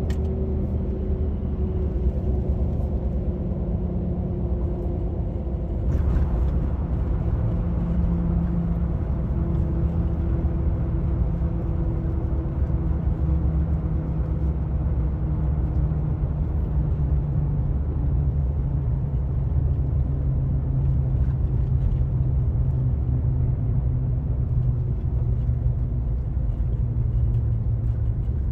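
Car cabin noise while driving at highway speed: a steady low rumble of tyres and engine, with a faint drone that drifts slowly in pitch.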